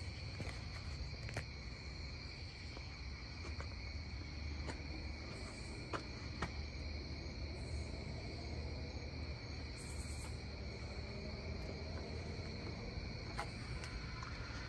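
Night-time crickets trilling in a steady chorus at two high pitches, over a low rumble and a few faint clicks.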